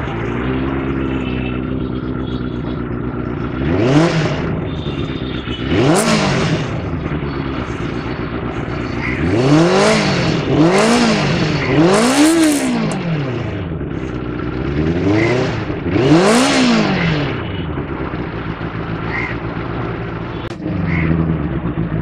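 Benelli TNT 600i's 600 cc inline-four engine through its stock under-seat four-into-two exhaust, idling and blipped on the throttle about seven times, each rev rising and falling quickly back to idle.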